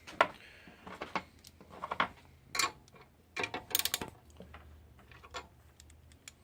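Hand tool working a half-inch bolt loose on a metal deicer: scattered sharp metallic clicks and clinks, with a quick run of clicks about four seconds in.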